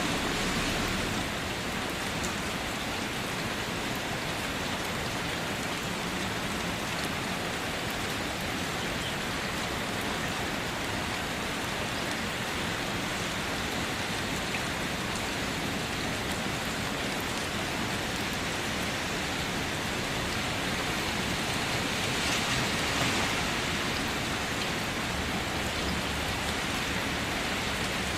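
Steady rain falling on a car, a dense even hiss of drops with faint scattered taps, swelling slightly a little past two-thirds of the way through.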